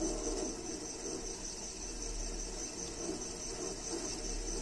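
Antique burin fixe faceplate lathe turned by hand at its flywheel, running steadily while the fixed graver cuts a pocket into a watchplate, with the wooden handle on the flywheel squeaking.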